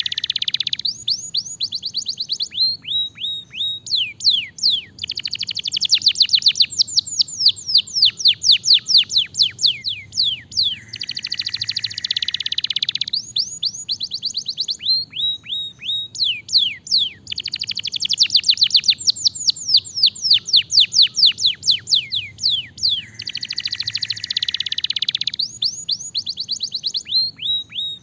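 Domestic canary singing a long, continuous song. Runs of rapid sweeping notes alternate with buzzy rolls of about two seconds, which come about every eleven to twelve seconds.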